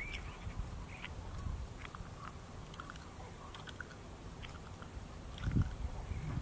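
An insect chewing, heard very close: irregular small crunching clicks from its mouthparts over a low rumble, with a low thud about five and a half seconds in.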